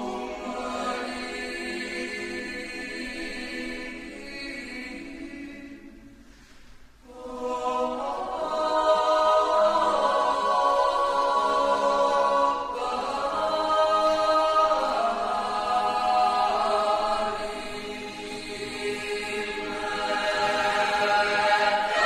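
Mixed chamber choir singing a cappella in sustained chords. The sound fades almost to a pause about six seconds in, then the voices come back in louder and fuller.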